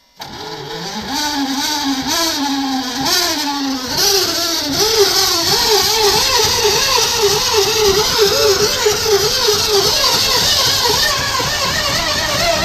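IS-3 heavy tank's V12 diesel engine running loud. Its revs climb over the first couple of seconds, then waver unsteadily up and down.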